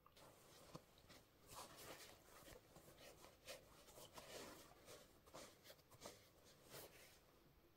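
Faint, irregular rustling, scraping and light taps from trainers and their packaging being handled.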